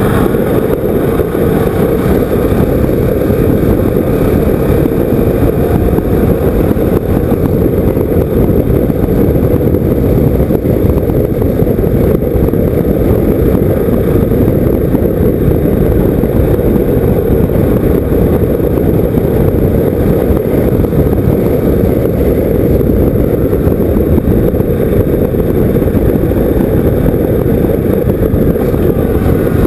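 KTM motorcycle riding steadily along a gravel road: a constant, loud mix of wind rush, engine and tyre noise, with no change in pace.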